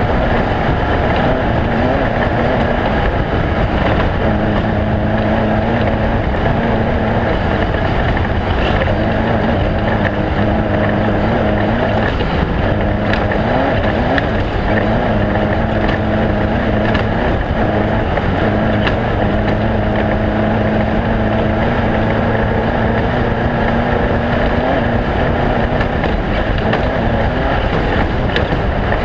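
Off-road race vehicle's engine running hard at a fairly steady speed, its pitch wavering slightly up and down, over a constant rumble of driving noise.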